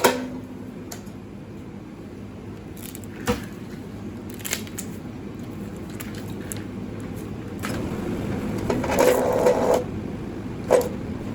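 Scattered scrapes and knocks as thick stripped copper cable and its insulation are handled at a wire stripper, with a louder, rougher stretch of scraping about nine seconds in and a sharp knock near the end.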